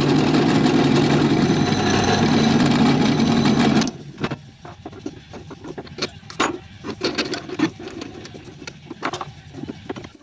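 Electric drill running under load as its bit bores through a metal intake adapter plate clamped in a vise, stopping abruptly about four seconds in. After that come scattered light clicks and scrapes of the metal being handled.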